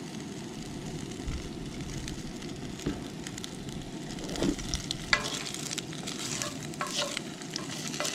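An egg frying in oil in a cast iron skillet on a propane camp stove: a steady sizzle, with a few light knocks a few seconds apart.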